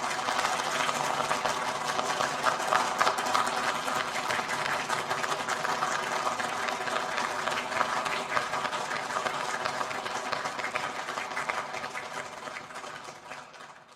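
Crowd applause: dense clapping with voices mixed in, steady and then fading out over the last two seconds or so.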